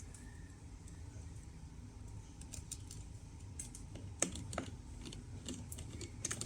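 Light, irregular clicks and taps of a PH000 precision screwdriver turning the tiny retaining screw that holds an M.2 SSD down in a laptop's drive slot. The clicks become more frequent and sharper after about two and a half seconds.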